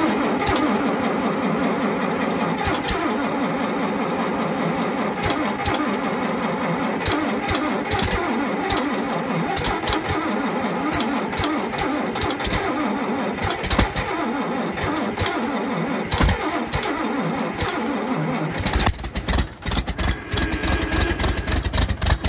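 International 656 tractor's gasoline six-cylinder engine being cranked by its starter in deep cold on choke, the cranking wavering steadily for about nineteen seconds. It then catches and keeps running with a deeper, steadier sound.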